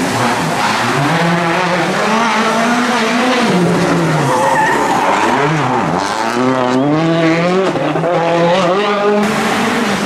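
Rally car engine revved hard through tight corners, its pitch climbing and dropping repeatedly as the driver lifts, brakes and changes gear. The tyres squeal as the car slides.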